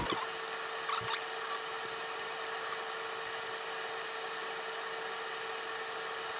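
A steady hum with a constant mid-pitched tone and a high hiss, with a few faint ticks about a second in.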